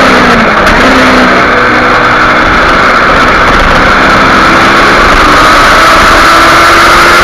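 Kawasaki Ninja 250R's parallel-twin engine running at speed on track, heard from onboard over strong wind rush. The revs drop at the start, then hold fairly steady and climb slowly toward the end as the bike leans through a corner.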